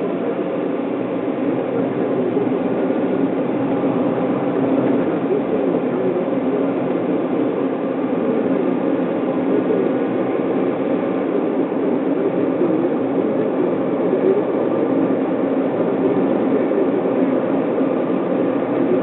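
Steady road and engine noise inside a moving car's cabin, dominated by a low tyre rumble on asphalt.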